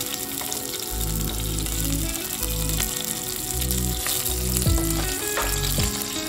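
Katla fish steaks sizzling in hot oil in a steel kadai as a wooden spatula lifts them out, over background music with a repeating bass line.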